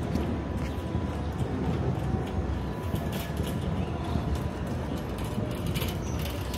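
Steady low rumble of city traffic, with a faint steady hum and a few brief light clatters.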